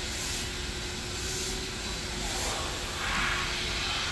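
Water splashing and spraying on a wet concrete wash area as horses are bathed, over a steady hiss and a faint steady hum. A louder rush of water about three seconds in.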